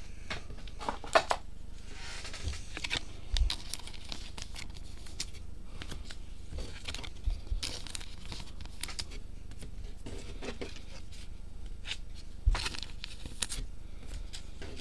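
Trading card packs and cards being handled on a table: a foil wrapper tearing and crinkling, cards rustling, and a few sharp taps.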